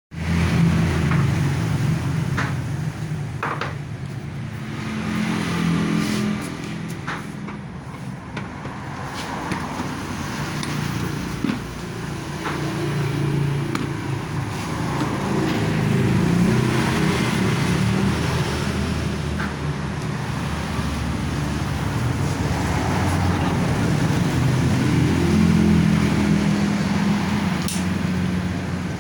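Steady, fluctuating rumble of road traffic, with a few faint clicks.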